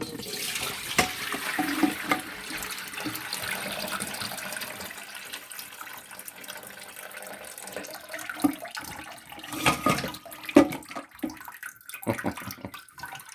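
Water gushing out of a toilet tank through the hole left by the pulled fill valve: it starts suddenly and slowly tapers off, the last of the tank water draining out. A few clunks of handling near the end.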